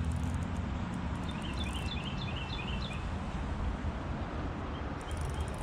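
Steady rush of flowing stream water, with a small bird chirping a quick run of short, high notes from about one to three seconds in.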